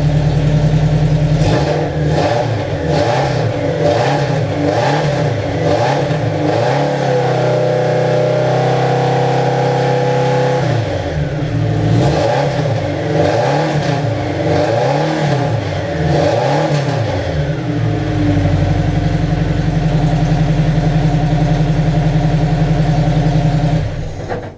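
Newly installed Riley 12/4 four-cylinder engine running, blipped by hand at the throttle: repeated rises and falls in revs about once a second, a few seconds held at raised revs, more blips, then a steady idle until it cuts off near the end.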